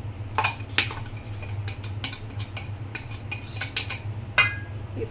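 Stainless steel cup clinking and tapping against a steel mixing bowl as powdered sugar is shaken out of it: a string of light metallic clicks, with one louder ringing clink about four seconds in.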